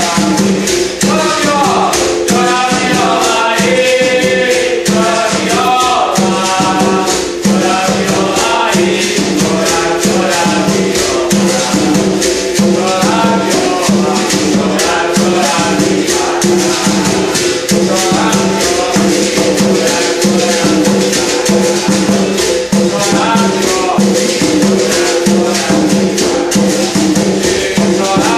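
Berimbau viola playing a rhythmic song with a tall hand drum and a rattling shaker, a voice singing over it in places.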